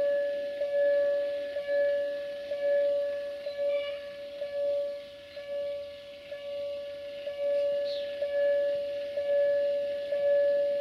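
Railway level-crossing warning bell ringing at one pitch, about one stroke a second, each stroke fading before the next, to warn road traffic of the approaching train.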